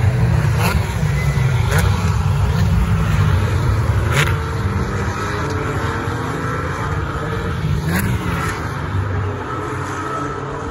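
Several Porsche Cayman race cars with 3.8-litre naturally aspirated flat-six engines passing close by at speed. The engine sound fades gradually from about four seconds in as the pack moves away, with a few brief sharp cracks along the way.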